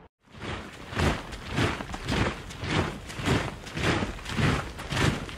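Rhythmic swishing noise pulses from an outro logo sound effect, a little under two a second, starting after a short moment of silence.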